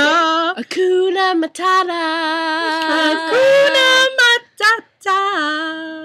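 A young woman's voice singing unaccompanied, holding long steady notes with a few short breaks between phrases.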